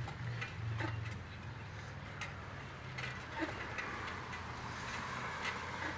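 Footsteps of a person walking on pavement, heard as irregular light ticks and taps, over a steady low hum.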